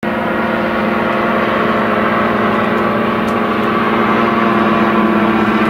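Engines of two weight-shift microlight trikes droning overhead at a steady pitch, growing slightly louder.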